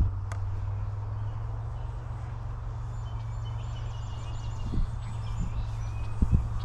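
Wind buffeting the microphone in a steady low rumble, with a sharp knock at the very start and a couple of low thumps later. Faint high chirps sound in the background.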